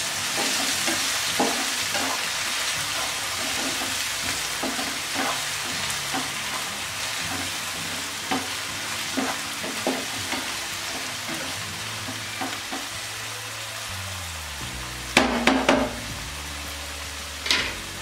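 Chopped onions, tomatoes and ginger-garlic paste sizzling in ghee and oil in a non-stick frying pan, with a spatula scraping and tapping the pan as it stirs: the masala base being fried. There are a few louder knocks of the spatula on the pan near the end.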